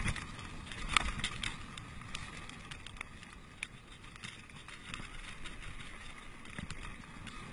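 Mountain bike rolling fast down a dirt trail: tyre noise on the dirt with knocks and rattles from the bike over bumps, the loudest about a second in.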